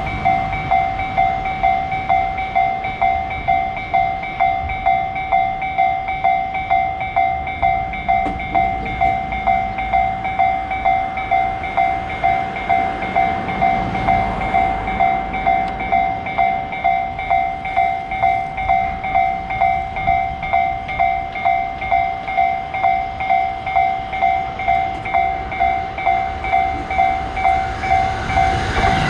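Japanese railroad crossing's warning bell ringing in an even, repeating ding about twice a second, while a train rumbles past over the crossing.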